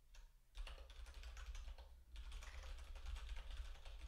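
Typing on a computer keyboard: a quick run of keystrokes starting about half a second in, a brief pause near the middle, then more rapid typing.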